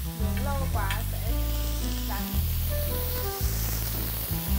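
Beef burger patties searing in a hot grill pan brushed with olive oil, a steady sizzle. Background music with a bass line that changes note every second or so plays over it.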